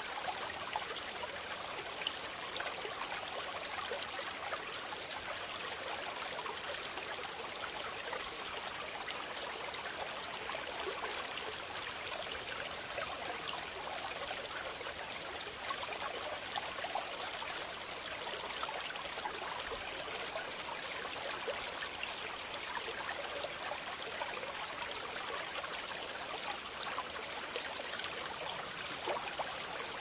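Steady water ambience, like a stream, an even rushing wash with a fine crackle running through it.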